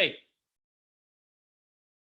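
A spoken word cuts off just after the start, followed by dead silence with no background sound at all.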